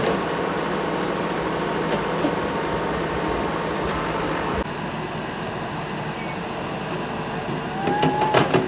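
An engine running steadily, with a few short knocks and a brief pitched call near the end.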